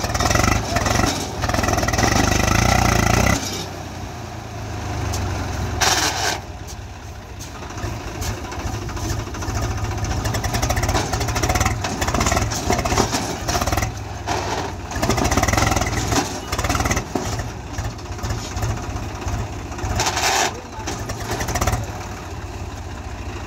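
Swaraj 735 XT tractor's three-cylinder diesel engine running, louder for the first three seconds or so and then settling to a steady lower idle. There are two short bursts of noise, one about six seconds in and one near the end.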